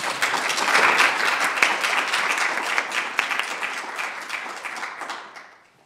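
Hall audience and panelists applauding, a dense patter of many hands clapping that dies away near the end.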